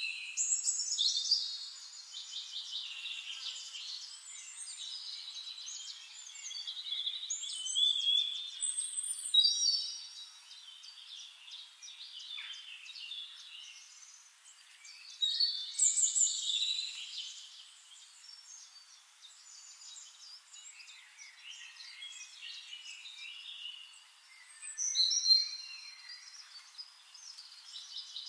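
Several songbirds chirping and trilling, with a few louder bursts of song among quieter calls.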